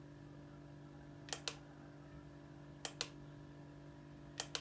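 Small plastic remote-control button clicking as it is pressed and released, a faint double click three times, about every second and a half, stepping the LED garland through its lighting modes. A faint steady low hum underneath.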